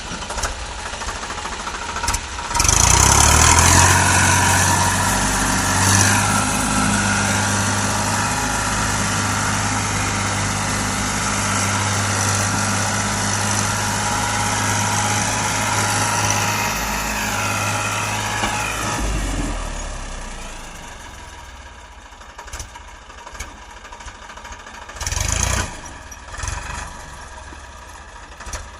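Heavy diesel engine running loud and steady, then dropping back to a quieter idle about twenty seconds in. A few short knocks sound near the end.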